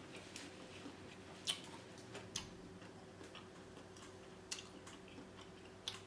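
Close-up eating of a seafood boil: scattered sharp clicks and cracks with soft chewing in between, the loudest crack about a second and a half in.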